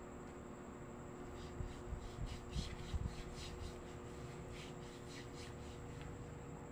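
Hands rubbing and kneading a person's skin in a massage, in repeated short strokes. A few soft thumps come between about one and a half and three and a half seconds in.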